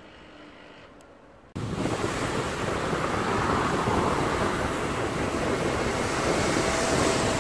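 Steady rushing outdoor noise that cuts in suddenly about a second and a half in, after a quieter stretch, and holds.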